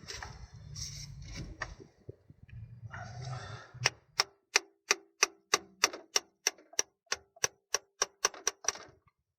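Hand tool working on the gearbox's clutch actuator: some handling noise and low rumble, then a steady run of sharp metallic clicks, about three a second, each with a short ring, stopping shortly before the end.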